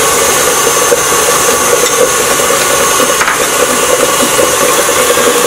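KitchenAid stand mixer running steadily, its beater churning cream cheese cheesecake batter as the eggs are added. A constant motor hum and whine.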